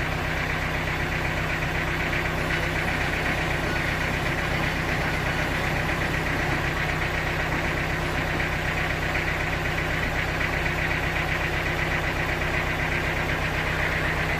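Sawmill machinery running steadily: an even, engine-like drone with a higher steady whine over it, unchanging throughout.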